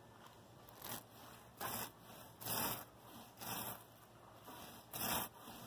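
Paint roller being rolled back and forth through wet latex paint on a painted fabric kayak skin: a series of about six soft rubbing swishes, a little under one a second.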